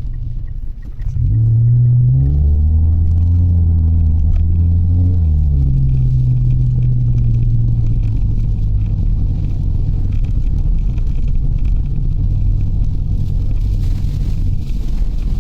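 A Mitsubishi Delica van driving, with a low engine hum over road rumble. The engine note climbs about a second in, drops, and climbs again about five seconds in, then settles into a steady drone that slowly falls in pitch.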